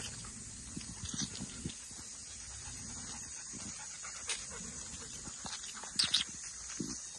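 Several dogs playing together, with a few brief, sharp dog noises about a second in and again, loudest, about six seconds in, amid scattered footsteps and scuffling. A steady high hiss runs underneath.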